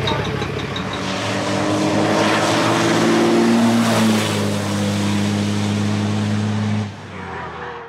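An engine running with a steady drone; its pitch rises a little midway, and it drops away suddenly about a second before the end.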